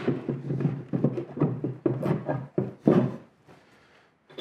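Wooden jaw of a Moxon vise being worked onto its steel screws and hardware by hand, a run of knocks and rattles of wood and metal.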